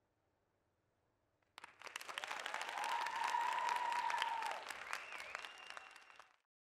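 Audience applauding and cheering, breaking out suddenly about a second and a half in, with a few long whoops or whistles held over the clapping, then cut off abruptly near the end.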